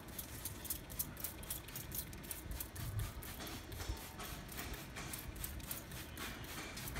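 A hand-held trigger spray bottle spritzing water in quick repeated squirts, a run of short hisses about three or four a second, with a low rumble underneath.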